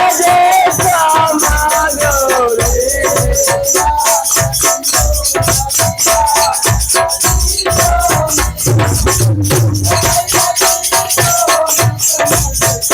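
Devotional song music with a fast, steady shaker-and-drum beat under a wavering melody line.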